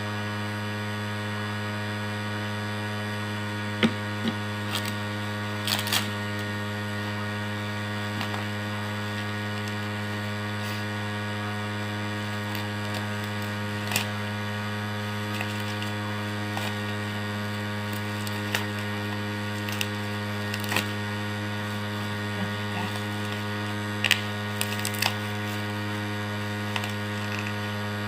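Steady electrical mains hum, a low buzz with many overtones, that does not change. About a dozen short light clicks and taps break through it at uneven intervals, as the parcel is handled.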